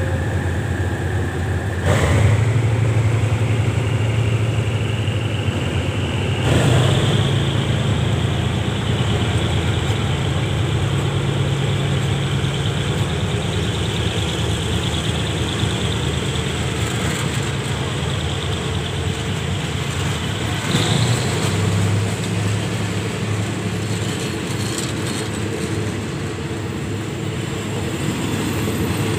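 Diesel locomotive engine running steadily with a low hum. Its level steps up sharply about two seconds in and again about seven seconds in, with a smaller rise about twenty-one seconds in.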